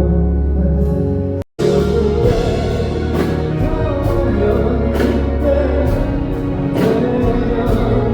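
Live pop ballad: a male vocalist sings over band accompaniment, amplified through a concert PA. The sound cuts out for an instant about a second and a half in.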